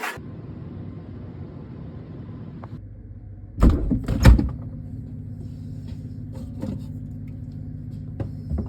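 Metal squat rack parts knocking together during assembly: two loud clunks about four seconds in and a few lighter taps later, over a steady low hum.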